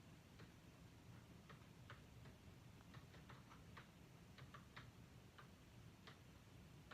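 Faint, irregularly spaced light clicks, about a dozen, over a low steady hum.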